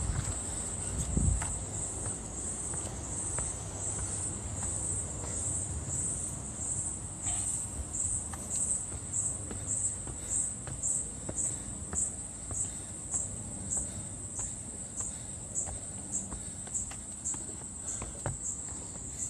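A high-pitched insect call pulsing steadily, about three pulses every two seconds, over low rumbling noise, with a low thump about a second in.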